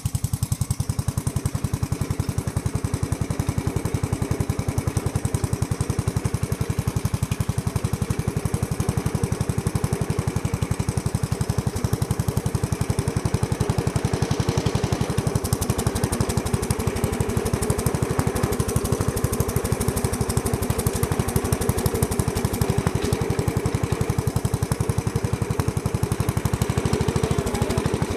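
Lawn tractor engine running steadily with a rapid, even firing pulse while the tractor drives over grass.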